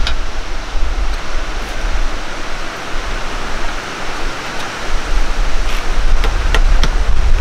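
Wind blowing across the microphone: a steady rushing noise with a heavy low rumble. A few faint taps come in the second half.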